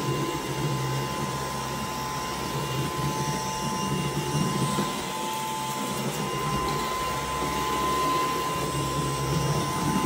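Dyson V11 Animal cordless stick vacuum running in Auto mode as its cleaner head is pushed across a wooden floor: a steady motor whirr with a high whine held at one pitch.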